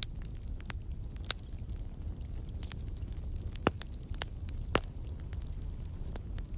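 Wood fire crackling in a fireplace: a steady low rumble of the flames with irregular sharp pops and snaps, two louder pops a little before four seconds and just before five seconds in.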